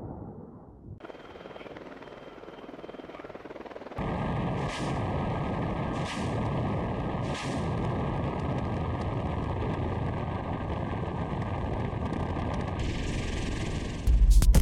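Attack helicopter noise: a faint, wind-blown helicopter at first, then loud steady rotor and engine noise heard from on board, with three sharp bursts about a second and a half apart as its rocket pod fires.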